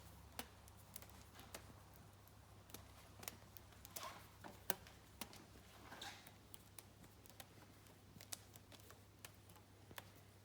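Faint handling noises: scattered small clicks, ticks and soft rustles as a rubber band is unwound from a fine-stranded cable with a crimp lug pushed onto it, over a steady low hum.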